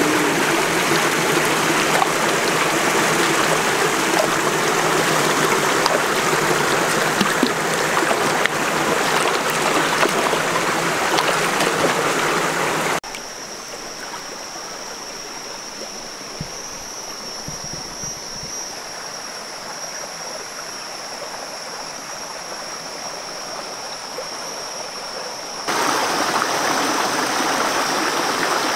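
Shallow rocky stream rushing and splashing over stones. About thirteen seconds in, the rushing water drops away for about twelve seconds to a quieter background with a steady high-pitched whine, then the loud water sound returns.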